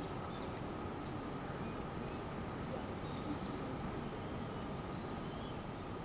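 Steady outdoor background noise with faint, scattered high bird chirps.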